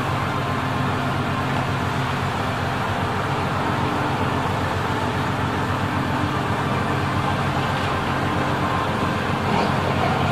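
Steady low engine hum under a constant rush of wind and sea.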